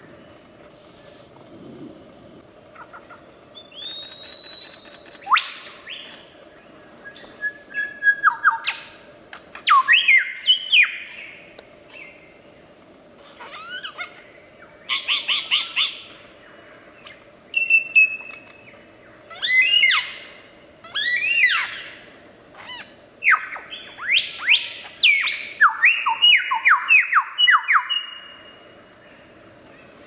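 Superb lyrebird singing a varied run of phrases, much of it mimicry of other birds: a long held whistle, steep rising and falling sweeps, and fast runs of repeated falling notes, with short pauses between phrases.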